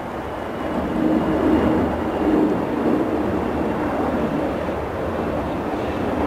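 Twin jet engines of an AirAsia Airbus A320 at climb thrust just after takeoff: a loud, steady rumble with a faint thin whine above it.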